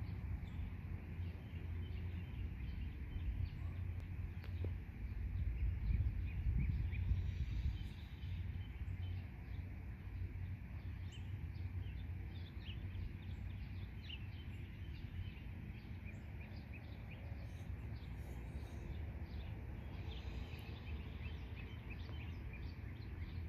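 Outdoor ambience: a steady low rumble, a little louder about six seconds in, with scattered faint chirps of small birds.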